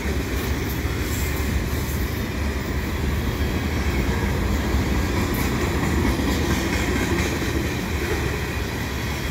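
Covered hopper cars of a Canadian Pacific freight train rolling past at close range: a steady rumble of steel wheels on the rails.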